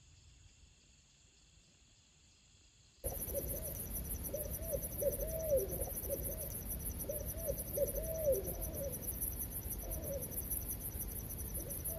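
Faint outdoor ambience with a steady high insect hum. About three seconds in, a louder recording cuts in abruptly: an owl hooting, a run of short rising-and-falling hoots in groups, over a fast, even, high insect chorus.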